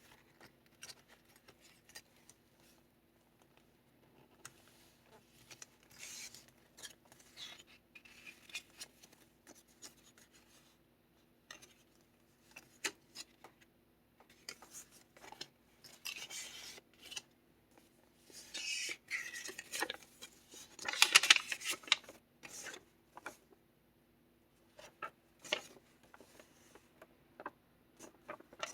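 Paper pages of a handmade kraft-envelope junk journal rustling and scraping as they are turned and handled, with many small clicks and taps. The loudest rustling comes in three stretches, the longest a bit past two-thirds of the way through. A faint steady hum sits underneath.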